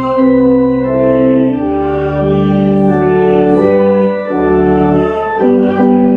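Organ playing a hymn in sustained chords, each held about a second, over a deep bass line that pauses briefly near the end.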